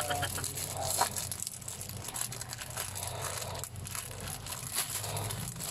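Faint rustling and a few light clicks over a low steady hum.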